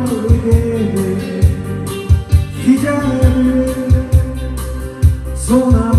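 Backing music with a steady drum beat under long, held melody notes.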